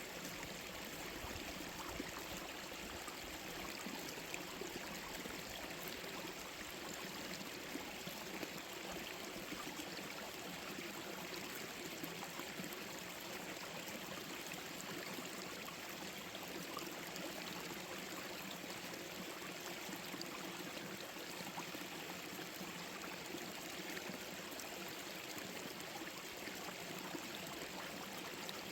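Small forest stream running over stones, a steady rush of water with light trickling and gurgling.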